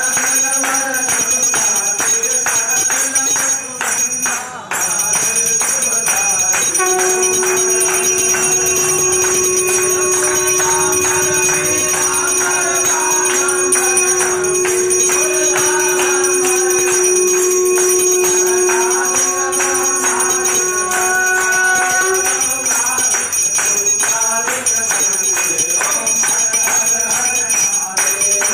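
Temple aarti: a group claps along and sings over continuous bell ringing. A long steady note is held from about a quarter of the way in until about three quarters through.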